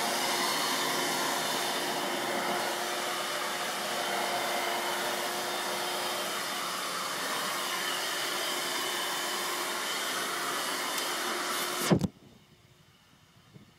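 Dirt Devil vacuum cleaner running steadily with a hum. It cuts off suddenly with a thump about twelve seconds in, leaving a quiet room.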